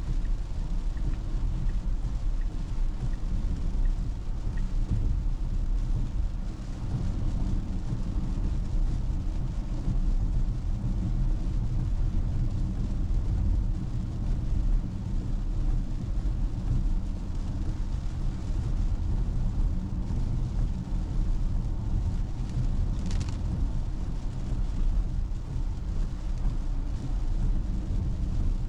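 Steady low rumble of tyres and road noise heard inside a Tesla electric car's cabin while driving on a rain-soaked road. There is no engine sound. A short hiss comes about three quarters of the way through.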